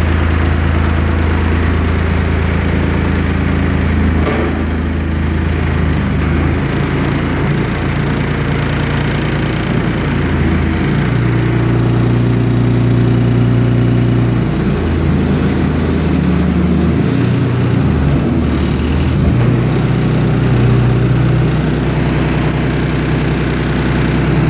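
ASV RC30 compact track loader's 3-cylinder, 30 horsepower Cat diesel engine running just after starting, its speed rising and falling several times.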